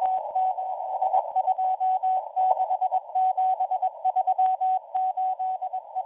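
Morse code (CW) from the M01 numbers station on shortwave: one steady mid-pitched beep keyed on and off in dots and dashes at a brisk, even speed. It comes through receiver hiss and the crackle of band static.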